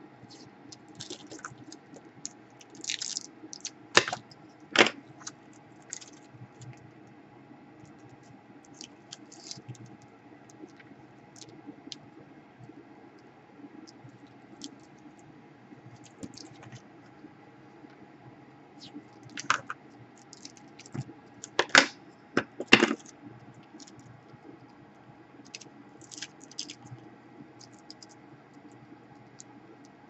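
Scattered small clicks, taps and scratches of hands handling a roll of thermal tape and small tools on a workbench, with a few sharp ticks about four seconds in and two more a little past twenty seconds; a low steady hum underneath.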